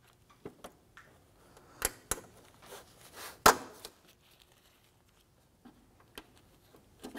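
Plastic push clips being pressed home into a plastic bumper cover panel: a scattered series of short, sharp plastic clicks and snaps, the loudest about three and a half seconds in.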